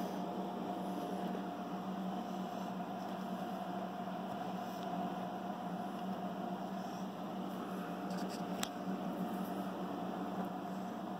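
Electric room fan running with a steady hum and whir, and a single light click about two-thirds of the way through.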